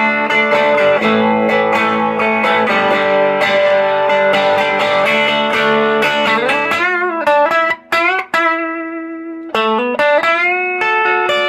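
Electric guitar playing a country-style lick from the D blues scale shape moved back three frets, giving a major sound over D: a fast run of picked notes, then string bends with a short break between them.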